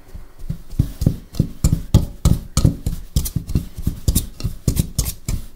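Pastry blender chopping and scraping through flour and fat in a mixing bowl: a steady run of short thumps against the bowl, about three strokes a second, as the fat is cut into the flour for pastry dough.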